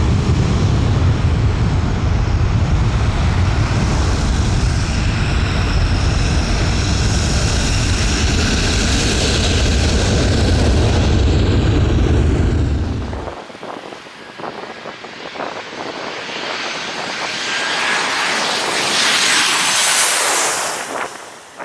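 Airliner jet engines, loud and deep, passing low; the rumble cuts off suddenly about 13 seconds in. A quieter hiss follows, swelling to a peak just before the end.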